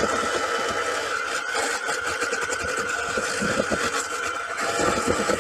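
Electric hand mixer running steadily with a constant motor whine, its beaters whipping egg yolks and sugar into a thick cream in a stainless steel bowl.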